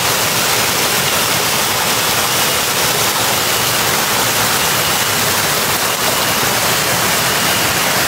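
Mountain stream running over rocks in small cascades: a steady, loud rush of water.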